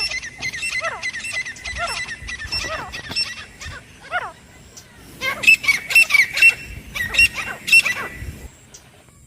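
Grey francolin (teetar) calling: a run of short repeated notes, about two a second, falling off after about four seconds, then a louder, quicker series of shrill high notes that stops abruptly about a second before the end.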